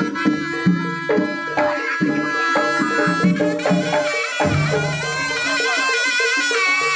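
Live jaranan gamelan music: a double-reed shawm (slompret) plays a sustained, wavering melody over drum strokes and ringing gong tones.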